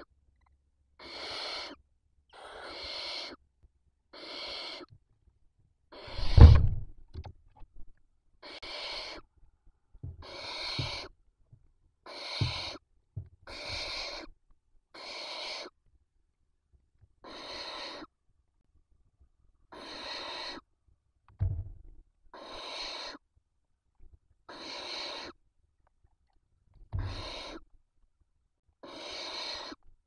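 Barn owl chicks giving their rasping begging hiss: a long string of short hisses, about one every one and a half to two seconds. A few dull low thumps break in, the loudest about six seconds in.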